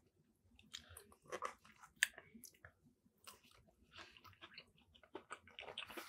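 Close-miked chewing of a mouthful of mac and cheese: faint, irregular wet mouth clicks and smacks.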